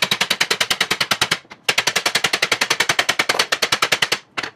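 A power tool hammering in rapid, even metal-on-metal blows, about eleven a second, in two long runs with a short pause between and a brief burst near the end, as it works at a rust-seized steel tractor drag link that does not come loose.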